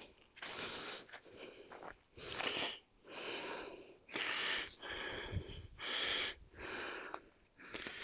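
A person breathing hard close to the microphone, in repeated breaths about a second apart, while walking over leaf litter and cut branches, with small crunches and twig snaps underfoot.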